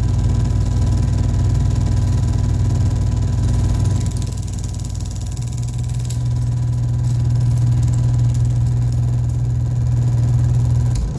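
Home-movie film projector running: a steady motor and fan whir with a low hum, shifting slightly about five seconds in.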